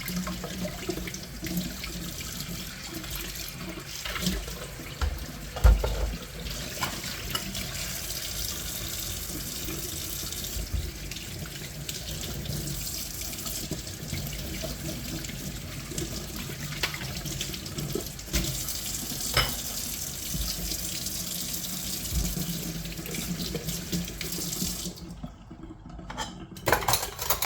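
Tap water running steadily into a sink while things are washed, with occasional knocks and clatters, one louder knock about six seconds in. The water cuts off near the end, followed by a few more clatters.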